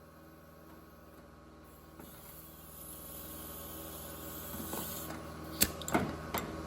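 A faint steady hum, then three sharp clicks or knocks about five and a half to six and a half seconds in.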